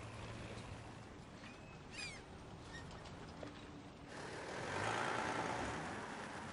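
A car driving up, its sound swelling about four seconds in and easing off toward the end. A bird chirps a few times about two seconds in.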